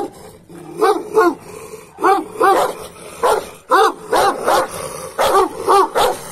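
Large dog barking over and over, about ten short barks, many of them in quick pairs.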